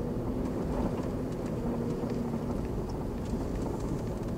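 A vehicle driving: steady engine and road rumble with a faint hum, and a few light rattles.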